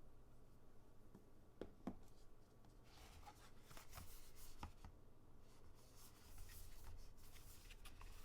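Faint rustling and scattered light clicks of hands handling a phone and its packaging, with two sharper clicks about two seconds in.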